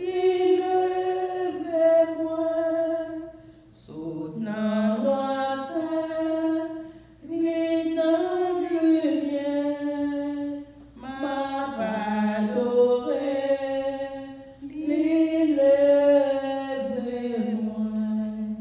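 A woman singing a hymn unaccompanied. She holds long notes in phrases of about three to four seconds, with short breaks for breath between them.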